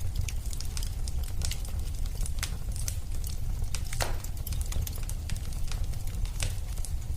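Wood fire crackling in a fireplace: a steady low rumble of the flames with irregular sharp pops and snaps, one longer hiss-like pop about four seconds in.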